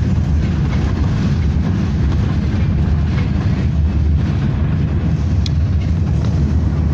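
BKM 60102 tram running along the track, heard from inside the passenger cabin as a loud, steady low rumble, with one brief sharp click about five seconds in.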